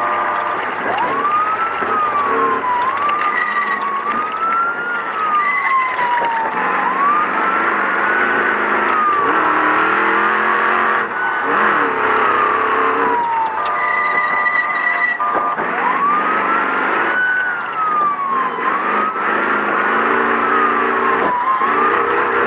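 Ford Ranger race truck's engine heard from inside the cab, its pitch climbing sharply and sliding back down again and again as the throttle goes on and off over rough terrain, over a constant bed of cab and road noise. A few short high beeps sound along the way.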